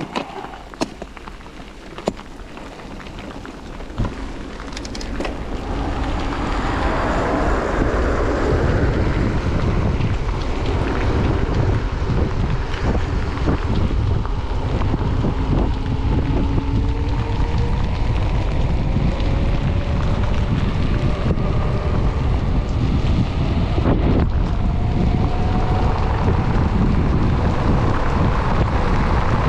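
Wind noise on a chest-mounted action camera's microphone as a mountain bike gathers speed down a wet asphalt road, with tyre hiss on the wet surface. A few sharp clicks and knocks come in the first few seconds, before the wind noise builds to a steady rush, and a faint hum slowly rises in pitch as the speed climbs.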